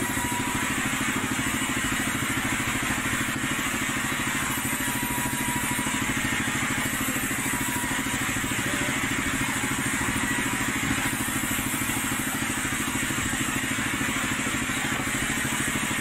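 Sawmill wood-cutting machinery running with a steady, even drone.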